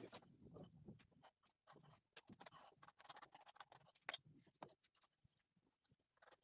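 Near silence with faint, irregular small clicks and scratches.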